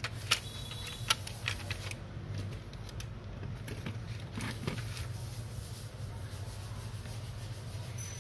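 Handling of an air-conditioner control board and its fan motor: a few sharp plastic clicks and knocks in the first two seconds and another near the middle, over a steady low hum.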